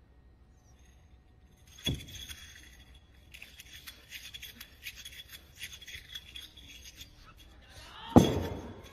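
Sounds of a wushu spear routine on a carpeted competition floor: a sharp thud about two seconds in, a run of quick, light, clinking and rattling clicks, then a loud thud near the end as the athlete drops into a low stance.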